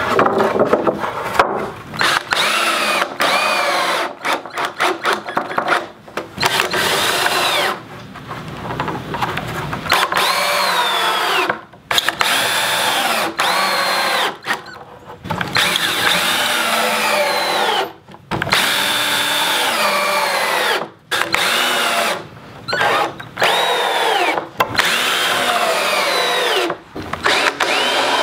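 Cordless Porter-Cable drill/driver driving screws into rough-sawn wooden boards, in about a dozen short runs of a second or two each. The motor whine rises as each run starts and falls off as it ends, with brief pauses between screws.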